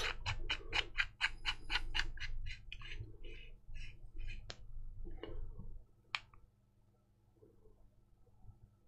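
Small parts of a vape tank being handled as its coil head is swapped: a quick run of small clicks, about six a second, then a few short squeaky rubs and two sharp clicks.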